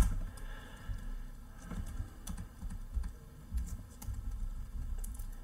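Scattered, irregular keystrokes on a computer keyboard: single taps at uneven intervals, the sharpest right at the start.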